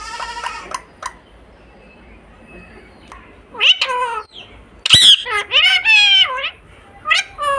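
Pet parrot calling: a short buzzy call at the start, then a run of loud, high calls that slide up and down in pitch in the second half.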